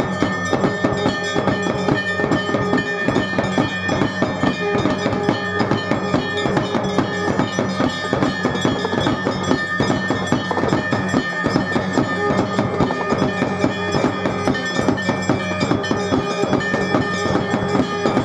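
Music with a steady beat of drums and ringing bell strikes.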